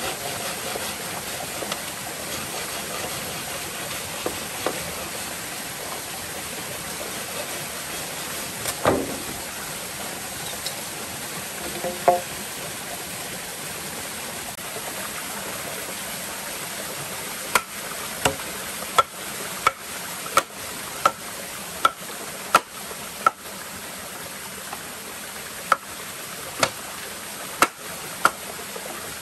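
Small waterfall and stream running steadily. A few sharp knocks come early, then in the second half a regular run of about a dozen sharp strikes on a green bamboo pole, about one every 0.7 s, each with a short hollow ring.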